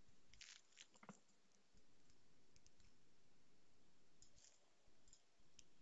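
Near silence: faint room tone with a handful of soft, scattered clicks, from mouse or keyboard use at a computer.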